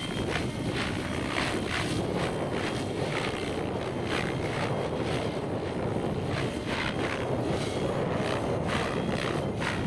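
Radio-controlled model helicopter flying aerobatics, its rotor noise coming in repeated whooshes about once or twice a second, over wind noise on the microphone.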